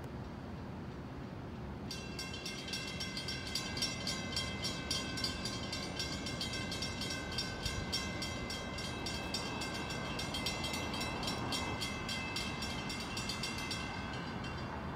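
Railroad grade crossing bell starting up about two seconds in and ringing in rapid, even strokes, then stopping about a second before the end, over a steady low rumble.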